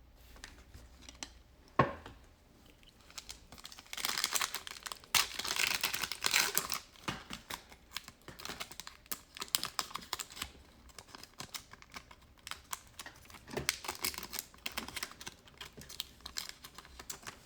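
Foil trading-card pack wrapper crinkling and tearing, with quick clicking and rustling as the cards are handled. There is a soft knock about two seconds in.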